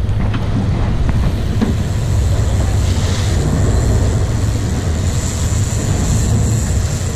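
Wind buffeting the microphone over the steady low rumble of the boat's engines, with water rushing along the hull.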